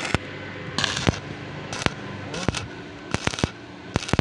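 Stick (arc) welding on a steel square tube: about six short bursts of arc crackle, each a fraction of a second long, as the arc is struck and tack welds are laid. Sharp clicks come between the bursts.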